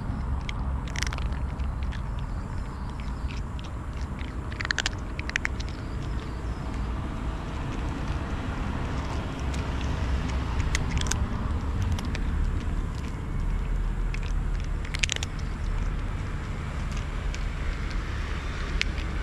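Cat chewing dry kibble close up, with scattered sharp crunches, over a steady low rumble.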